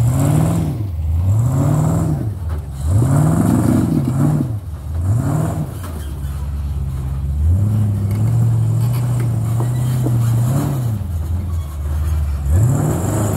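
Rock-crawling Jeep's engine revved in short throttle blips, about five in the first six seconds, then held at higher revs for about three seconds before dropping back, with another blip near the end, as it climbs over boulders.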